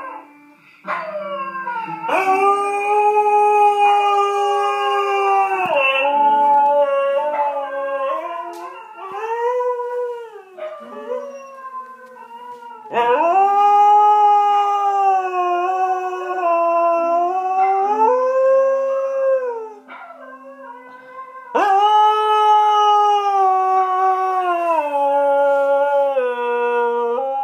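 A husky howling in long, drawn-out calls that rise and fall in pitch, three of them lasting several seconds each, with shorter howls between. A lower held tone sits beneath them and changes pitch in steps.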